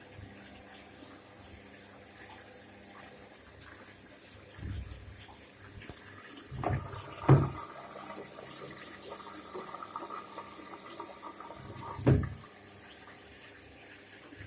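Indesit washing machine filling with water on a test run: after a low thump, water rushes in with a hiss for about five seconds, opening with a couple of sharp knocks and stopping with a thump.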